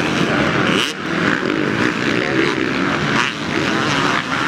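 Several racing motorcycle engines at full throttle, their pitches rising and falling as the bikes accelerate and back off.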